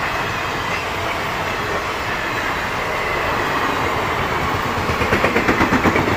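A train of passenger coaches rushing past at speed, with a steady roar of wheels on the rails. About five seconds in, a rapid clickety-clack of wheels striking rail joints sets in.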